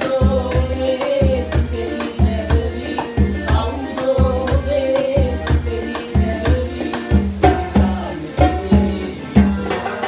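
Men singing a Sinhala pop song together, backed by piano accordion and hand drums, with shakers keeping a steady, even rhythm.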